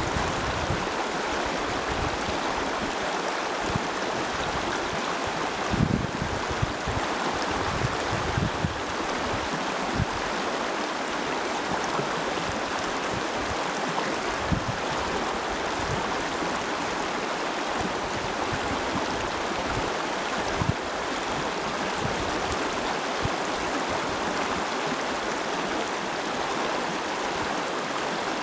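Shallow, fast river rushing steadily over a rippled riffle close by, with a few brief low thumps scattered through.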